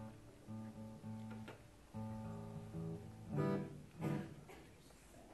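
Guitar playing a run of short held notes, then two strummed chords about three and a half and four seconds in.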